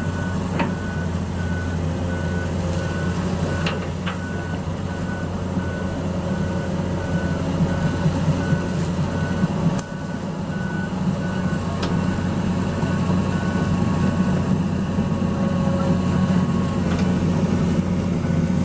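Long-reach Komatsu hydraulic excavator running steadily while it tracks through floodwater, its travel alarm beeping about twice a second. A few brief knocks are heard.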